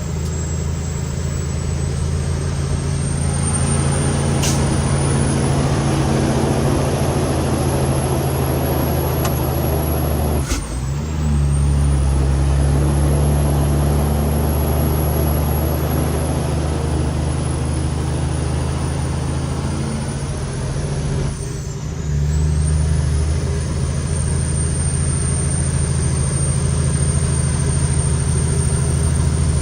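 Cummins X15 diesel of a Kenworth T800 truck loaded with 33 tonnes, pulling away and accelerating under load, heard from the cab. A high whine rises with the engine. Twice, about ten and twenty-one seconds in, the sound dips briefly and the whine drops as the driver shifts up a gear.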